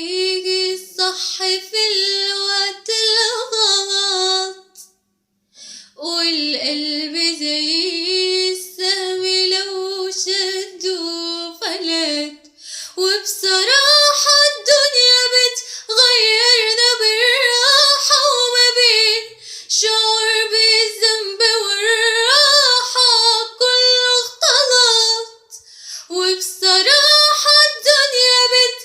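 A young woman sings an Arabic song solo, with no instruments heard. She breaks off briefly about five seconds in. From about halfway, the melody climbs higher and stays there.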